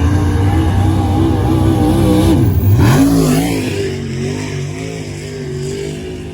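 Dirt-track modified race car engine running hard on the track. About two and a half seconds in, the pitch drops sharply as the throttle lifts, then climbs back as the driver gets back on the gas. After that the engine runs a little quieter.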